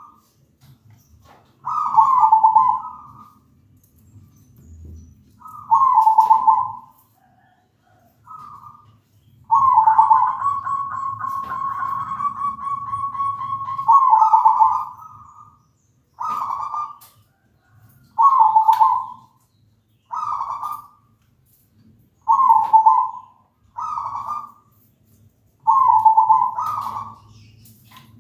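Zebra dove (perkutut) cooing in its song: a series of short rolling coos, each about a second long, with one long drawn-out trilled coo of about four seconds about a third of the way in. A few sharp clicks fall between some of the coos.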